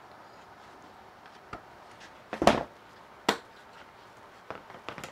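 A few short wooden knocks and clicks as a plywood cabinet panel and a bar clamp are handled and set against a plywood base on a workbench, the two loudest about two and a half and three and a third seconds in, with lighter clicks near the end.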